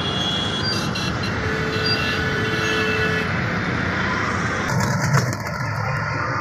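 Steady rumble and rattle of riding in an open three-wheeled rickshaw through road traffic, with a brief louder bump about five seconds in.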